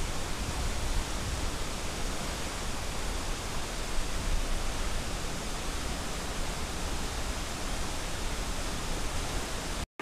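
Steady rushing noise of a tall waterfall plunging into its pool, with a deep rumble underneath. It cuts out briefly near the end.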